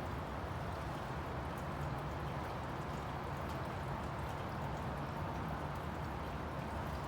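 Steady rain falling during a thunderstorm, an even wash of noise with faint scattered drip ticks.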